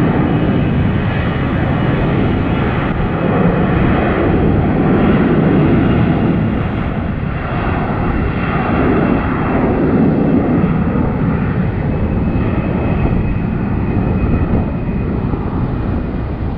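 Jet airliner engines heard close by as the plane lands or takes off: a loud, steady rushing noise with faint high whining tones, easing slightly over the second half.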